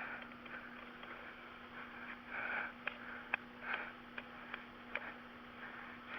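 Breathing and sniffing close to the microphone, in soft puffs, with a few small sharp clicks scattered through it and a faint steady hum underneath.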